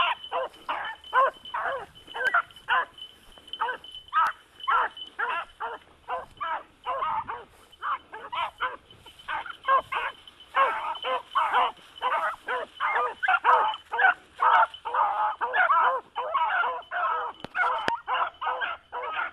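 Several dogs barking rapidly and without a break, about two to three barks a second, the barks overlapping and coming thicker from about ten seconds in.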